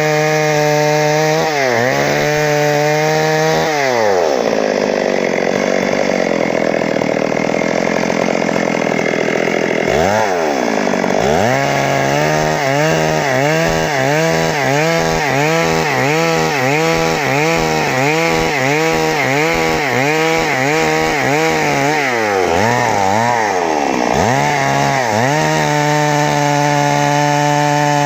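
Stihl MS 382's 72 cc two-stroke chainsaw engine running after a stuck-piston repair, its revs blipped up and down. About four seconds in it drops in pitch and turns rough for several seconds, as when pulled down under load in a cut. Later it revs up and down quickly, a bit more than once a second.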